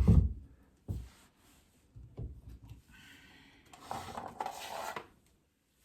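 Wooden box trim moulding being handled and fitted onto a cabinet. A loud dull thump comes right at the start, lighter knocks follow about a second and two seconds in, and about a second of wood rubbing comes near the end.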